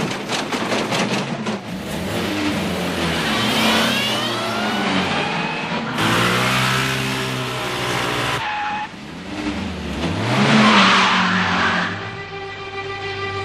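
Motor scooter engine being ridden hard, its pitch rising and falling as it revs, with abrupt changes a few times. Music comes in near the end.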